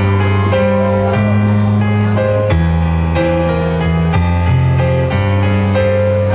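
Live keyboard music through a PA: held chords over low bass notes that change about once a second.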